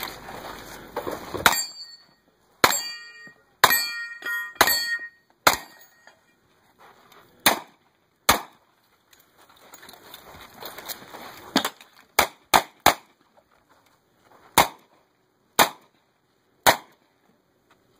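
A string of revolver shots, about fifteen in all, in bursts of quick shots with pauses between. After several of the hits, steel targets clang and ring on.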